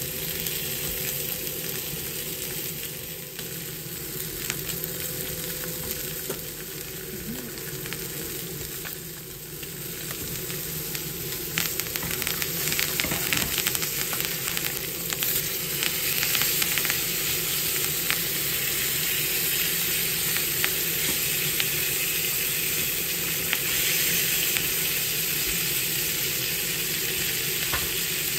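Sirloin steak sizzling in oil in a hot frying pan, with fine crackling spits. The sizzle grows louder about halfway through, when the steak is turned over with tongs.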